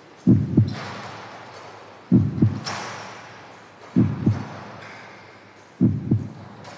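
Slow heartbeat-like double thump, lub-dub, four times at even intervals of just under two seconds, with a brief hissing swish over the first beats.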